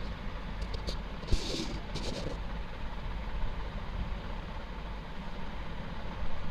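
Green chillies and whole spices sizzling in hot oil in an aluminium pot while a metal slotted spoon stirs them. The spoon knocks against the pot once about a second in and scrapes briefly just after. A steady low rumble runs underneath.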